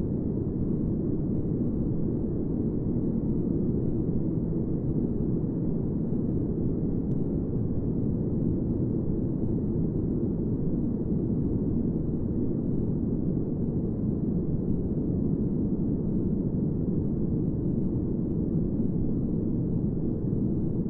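Steady synthetic noise, deep and muffled rather than bright, with its energy mostly in the low range and nothing in the treble. It runs evenly with no pulses, tones or changes.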